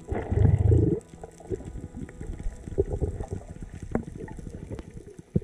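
Underwater sound picked up by a camera in a dive housing: a loud low rush of water in the first second, then a steady crackle of scattered sharp clicks.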